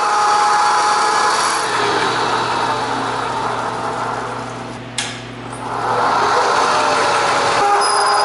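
Drill bit in a milling machine cutting into steel square receiver-hitch tubing, a steady grinding of metal over the hum of the machine's motor. The cutting fades about four to five seconds in, with a sharp click, then builds up again, and the sound changes abruptly near the end.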